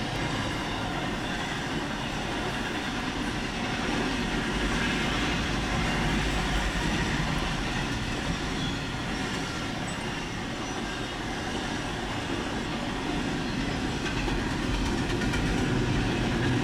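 CSX intermodal freight train of double-stack container cars and trailer flatcars rolling past, its steel wheels running on the rails with a steady rumble and clatter.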